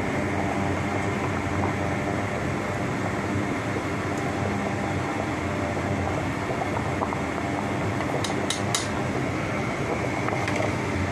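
A pot of fish soup boiling hard on the stove, with a steady rumbling hum throughout. A few light clicks come about eight seconds in.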